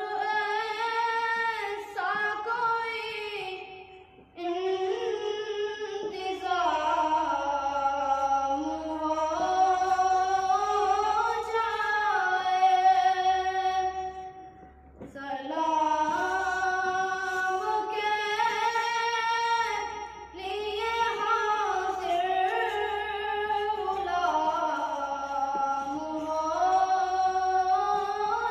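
A boy singing an Urdu naat unaccompanied, in a high unbroken voice, holding long ornamented notes that bend up and down. He breaks off twice for breath, about four and fourteen seconds in.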